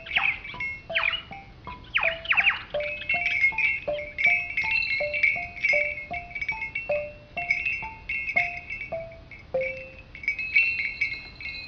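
Background music: a repeating figure of short pitched notes with higher ringing tones above it, and a few quick falling sweeps in the first seconds.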